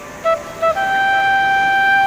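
Instrumental music: a single melodic instrument plays a few short notes, then holds one long steady note from about a third of the way in.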